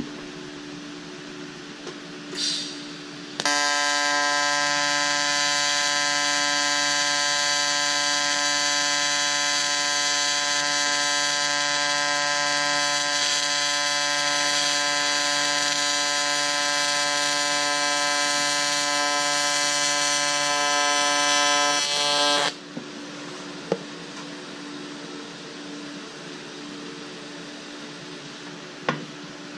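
AC TIG welding arc on aluminum: a steady, loud buzz that starts about three seconds in, holds for about nineteen seconds, then cuts off suddenly as the foot pedal is released.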